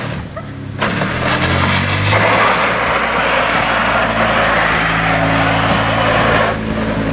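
An Acura coupe's engine running steadily; the sound comes in abruptly about a second in.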